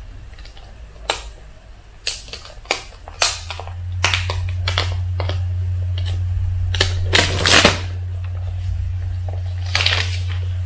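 Clear plastic packaging crackling and snapping in a string of sharp clicks as it is peeled off and handled around an iPhone box, with a longer crinkle a little past the middle. A steady low hum sits underneath from about four seconds in.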